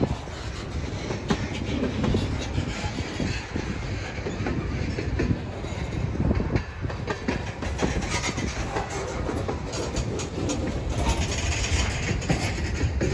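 Freight train cars rolling past: a tank car and covered hopper cars, their steel wheels clicking irregularly over rail joints with a steady rumble.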